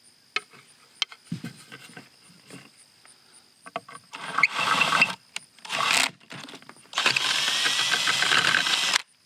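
A power drill boring through tile, with small knocks and scrapes, then two short runs and a steady run of about two seconds that cuts off suddenly near the end.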